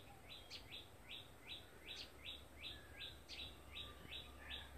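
A bird calling faintly, a short falling chirp repeated steadily about three times a second, over a low steady hum.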